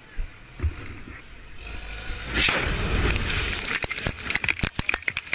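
A large explosion close by: a rushing blast that swells and peaks about halfway through, then a dense rapid patter of debris and gravel raining down.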